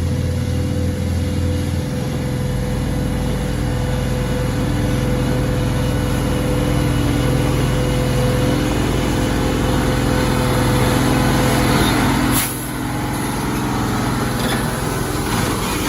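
Diesel engine of a loaded Hino FM 280 JD dump truck running steadily under load, with a sharp sound about twelve seconds in, after which the engine note drops.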